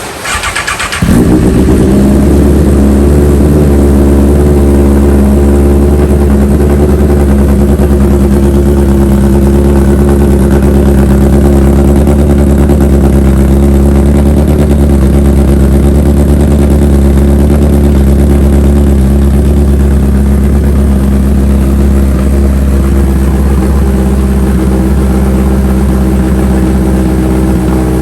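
A 2021 Honda CB1000R's inline-four engine, breathing through an Akrapovič full exhaust system, is cranked by its starter for about a second. It catches and settles into a loud, steady idle, easing a little lower near the end.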